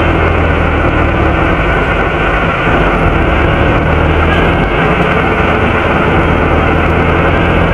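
Volvo B7RLE bus heard from inside the rear of the saloon: a steady low engine drone under a loud, even rushing of the engine cooling fan, unchanging throughout.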